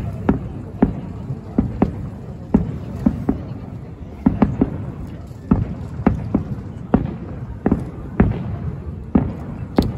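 Aerial fireworks shells bursting in a quick, uneven series of booms, about one or two a second, over a low rumble.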